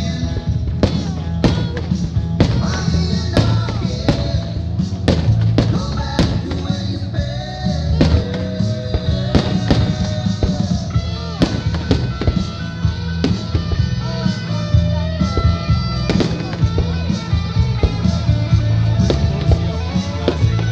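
Loud background music with singing and a heavy bass, with fireworks bangs and crackles mixed in.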